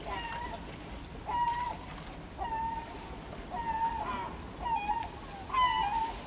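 A bird calling over and over: a short, clear call about once a second.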